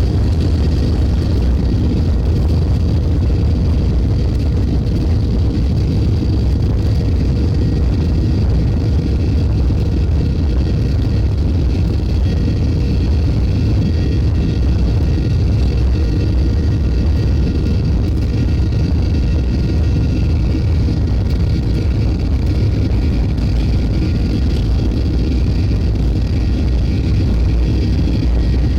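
Steady roar inside the cabin of a Boeing 737-800 from its CFM56 jet engines and airflow, a deep rumble with faint steady whining tones above it.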